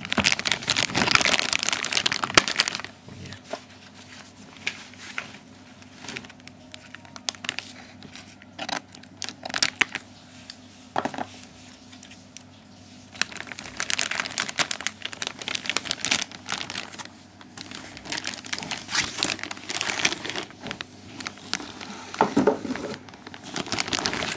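Plastic packaging crinkling and rustling as it is handled and unwrapped, heaviest for the first few seconds and again through the second half, with scattered clicks and taps in between.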